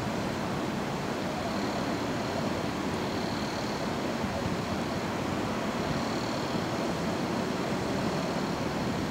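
Diesel locomotives of an approaching coal train running in a steady rumble, with a faint high-pitched whine above it.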